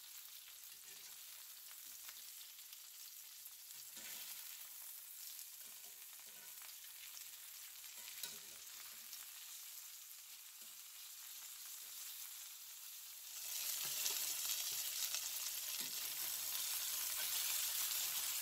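Flour-dredged chicken thighs sizzling in hot oil in a cast iron skillet as they are turned over with metal tongs. The sizzle is a steady hiss that grows noticeably louder about two-thirds of the way through.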